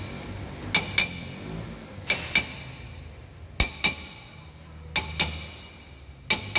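TVS three-wheeler's brake drum being tapped with a wrench to knock it loose from rust at its edge: five double taps about every 1.3 seconds, each a sharp metallic clink with a short ringing note.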